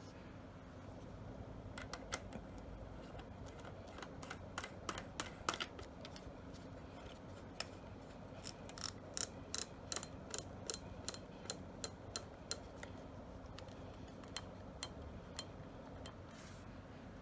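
Light, sharp clicks and taps from handling the parts of a Beretta A400 semi-automatic shotgun, scattered at first, then coming two or three a second in the middle before thinning out.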